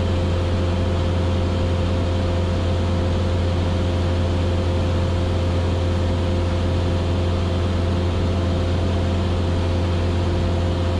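Cessna 172S's four-cylinder Lycoming IO-360 engine and propeller droning steadily in cruise flight, heard inside the cabin.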